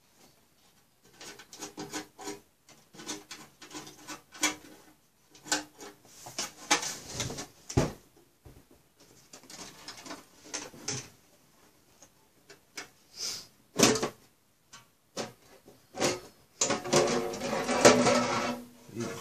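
Clicks, knocks and scrapes from handling the HP ProLiant Gen8 MicroServer's case and undoing its rear thumbscrews. Near the end comes a longer, louder metallic scrape with a ringing tone as the steel outer cover slides off the chassis.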